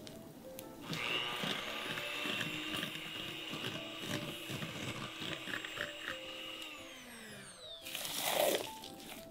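Electric hand mixer whipping egg into creamed butter and sugar in a glass bowl at medium speed: a steady motor whine starts about a second in, then falls in pitch and winds down as the mixer is switched off. Near the end a spatula scrapes the batter around the bowl a few times.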